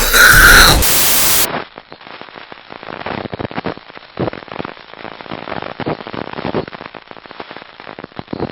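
A loud burst of noise that turns into a short rush of hiss and cuts off sharply about a second and a half in. It is followed by steady, irregular crackling static, like a damaged recording.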